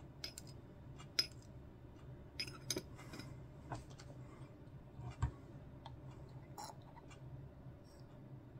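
Faint, irregular clinks and taps of a stirring tool against a small glass jar as enamel wash is mixed with thinner, over a faint steady low hum.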